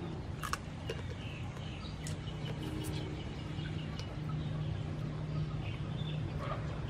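Chickens clucking and birds chirping in the background, over a steady low hum. A few sharp clicks come as crab shell is bitten and picked apart by hand.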